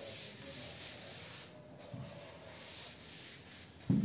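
A chalkboard being wiped clean: a steady scratchy rubbing as the chalk writing is erased, easing briefly midway, with a single thump near the end.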